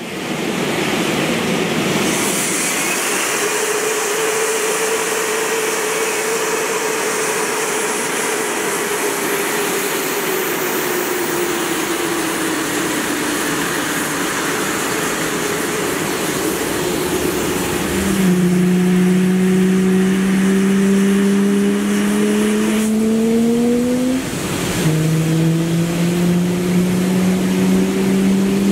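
JAS-39C Gripen fighter's Volvo RM12 turbofan spinning up and running on the ground during startup: a loud steady rush of jet noise with a whine. About eighteen seconds in, a lower steady hum joins and slowly rises in pitch. It cuts out briefly near twenty-four seconds and then comes back.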